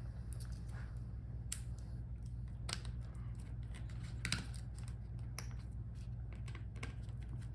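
Irregular light clicks and taps of a screwdriver and small metal screws as the battery screws inside an open laptop are taken out, over a steady low hum.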